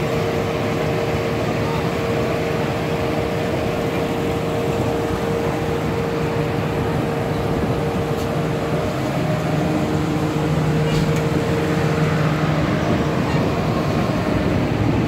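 Street traffic: a steady mix of car and other vehicle engines with a constant hum, and people's voices in the background.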